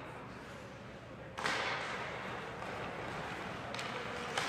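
Ice hockey play in an arena: a sudden rush of noise about a second and a half in that slowly fades, and two sharp knocks near the end.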